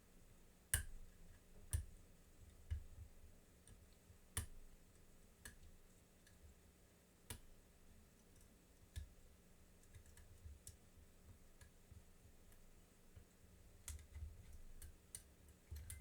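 Faint, irregular metallic clicks of a lock pick and tension wrench working the pin stack of a padlock, with soft handling bumps; a few sharper clicks come in the first few seconds.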